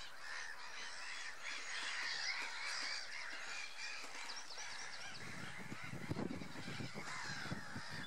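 A dense chorus of waterbirds calling over one another: many short, harsh black-headed gull calls, with greylag geese honking. About five seconds in, low rumbling knocks join in.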